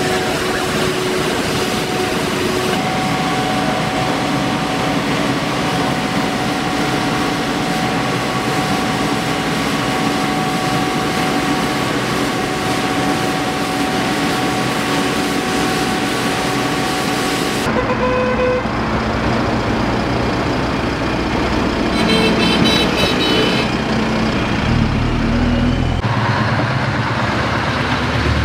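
Pressure washer jetting a stone wall: a steady hiss of spray with the machine's steady hum under it. After about 18 seconds this gives way abruptly to road traffic, with a horn tooting a few times a little later and a heavy livestock lorry passing near the end.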